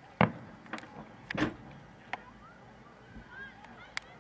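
Fireworks shells bursting in the distance: a loud bang about a quarter second in, followed by several more sharp reports spread over the next few seconds.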